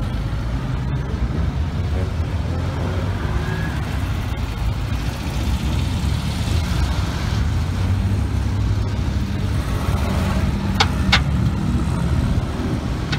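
Low, steady engine and exhaust rumble from lowered cars idling and rolling slowly past. Two pairs of short, sharp pops come near the end, the first a little before the end and the second right at it.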